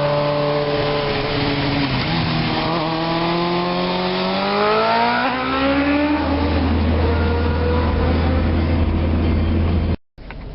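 Suzuki GSX-R600 inline-four engine revving, its pitch climbing steadily for a few seconds, then holding a steady low note before cutting off abruptly near the end.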